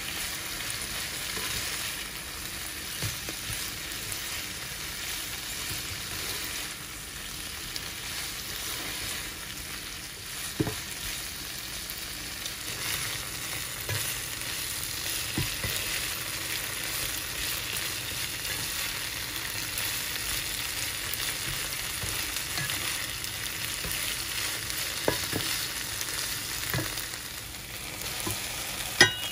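Shrimp and green beans sizzling in a nonstick frying pan: a steady frying hiss, with occasional scrapes and a few sharp taps of a slotted spatula against the pan, the loudest near the end.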